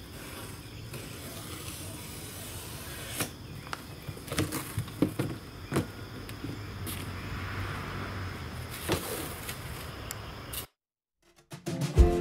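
Cardboard shipping box being pulled down and off a boxed stainless steel gas grill: scattered scrapes and knocks of cardboard over a steady chirring of crickets. The sound cuts off suddenly near the end, and music begins just after.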